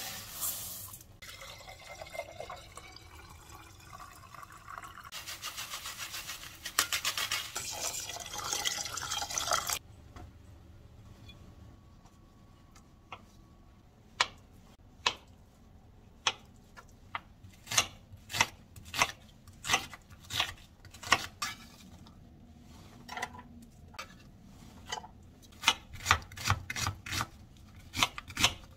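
Water running and sloshing in a rice-cooker pot as rice is washed, for about ten seconds, then stopping. After a quiet pause, a kitchen knife cuts a block of tofu, its blade knocking on a cutting board in sharp single taps that come faster near the end.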